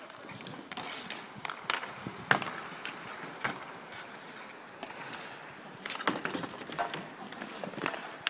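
Inline hockey play on an asphalt rink: the steady rumble of skate wheels, broken by irregular sharp clacks of sticks and puck. The loudest clack comes a little over two seconds in, and a cluster follows around six seconds.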